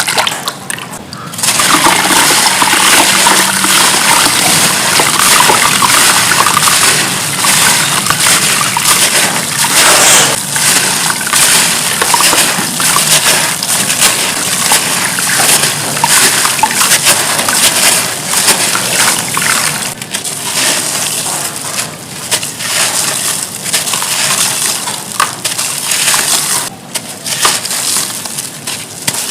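Lumps of gritty charcoal crumbling and splashing into a tub of water, a dense crackle of small clicks with sloshing from about a second and a half in.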